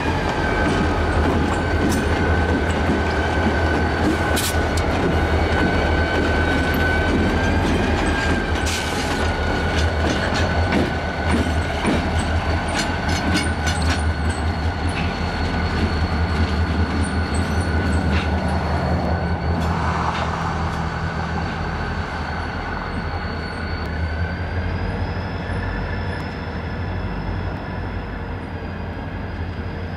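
Reading & Northern diesel locomotives hauling covered hopper cars, with a deep steady engine rumble and a steady high-pitched whine. The wheels click over rail joints through the first half, and the sound eases off somewhat near the end.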